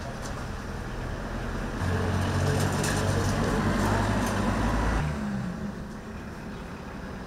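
A motor vehicle's engine running, a steady low hum that grows louder about two seconds in and drops off suddenly about five seconds in, over street traffic noise.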